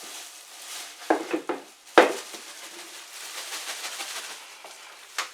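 Kitchen handling noise as chopped onions are packed into a plastic bread bag: rustling with a few knocks about a second in, a loud knock about two seconds in, and another click near the end.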